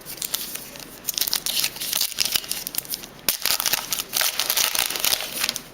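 Foil wrapper of a Panini Playoff Contenders hockey card pack being torn open and crinkled, in two crackly stretches of a couple of seconds each.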